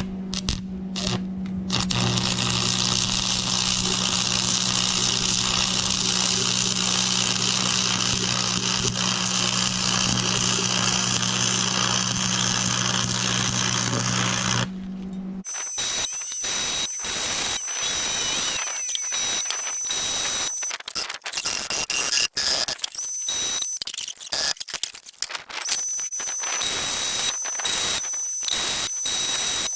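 A plasma cutter running, a steady hiss over a low hum, for about the first half. Then it breaks into short, choppy bursts of shop noise with a high whine coming and going.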